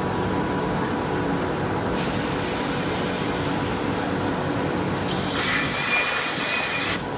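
CNC plasma cutting table with its plasma torch hissing over a steady machine hum. The hiss comes in about two seconds in, grows louder with a thin whistle about five seconds in, then cuts off abruptly near the end as the arc stops.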